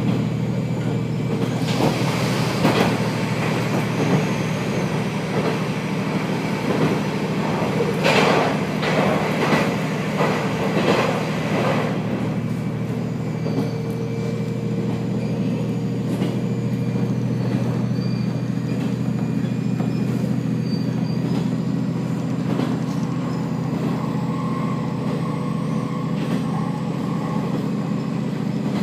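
Inside a KiHa 47 diesel railcar under way: the diesel engine drones steadily under the rumble of wheels on the rails, with a stretch of louder clattering between about 8 and 12 seconds in.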